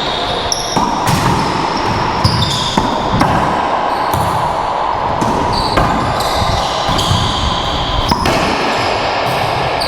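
Racquetball rally: the hollow rubber ball is smacked by racquets and rebounds off the court walls and floor in a run of sharp, irregular cracks that echo in the enclosed court. High squeaks from court shoes come in between the hits.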